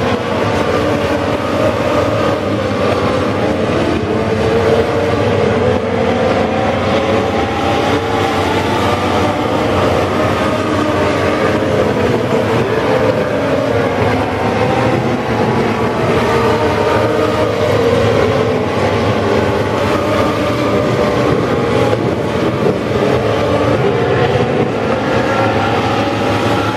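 A pack of Legends race cars at speed, their Yamaha motorcycle engines running at high revs. Many engine notes overlap, rising and falling as the cars accelerate and lift through the turns.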